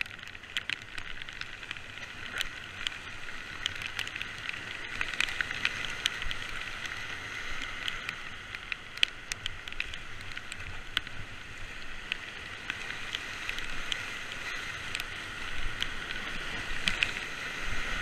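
Whitewater rapids rushing around an inflatable raft, a steady hiss with many sharp ticks of spray hitting the camera; the rush grows louder near the end as the raft reaches the white water.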